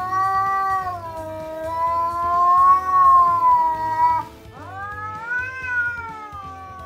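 Orange-and-white stray cat giving long, drawn-out threat yowls (caterwauling). One yowl is held for about four seconds and breaks off, then a second one rises and slowly falls away.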